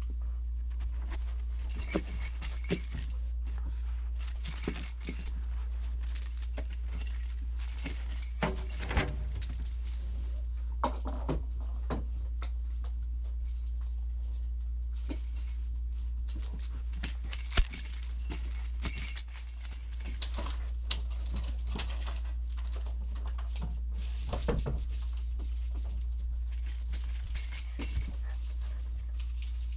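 Repeated bursts of metallic jingling and clinking, several seconds apart, over a steady low hum.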